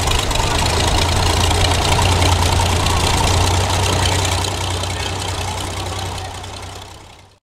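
Vintage Oliver row-crop tractor's engine running steadily at low idle as the tractor creeps along; the sound fades out near the end.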